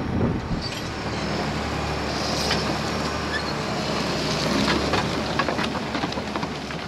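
Tractor engine running steadily under load while ploughing, a low, even hum.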